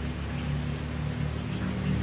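12-volt LED cooling fan running steadily off a bench 12 V supply: a steady airy whoosh over a low hum. The fan itself works; the fault lies in its power adapter.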